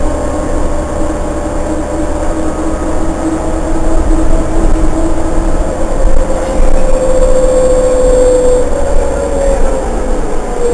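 New Flyer C40LFR transit bus heard from inside the cabin while under way: the Cummins C Gas Plus engine and Voith D864.3 transmission running with a low rumble and a steady drivetrain whine. The whine falls in pitch over the last few seconds.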